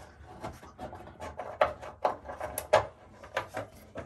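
Irregular scraping and clicking as a mounting screw is worked out of a medicine cabinet's frame, with a few sharper clicks in the middle.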